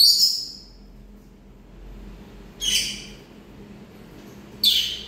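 A bird giving three short, harsh, high-pitched calls, a couple of seconds apart.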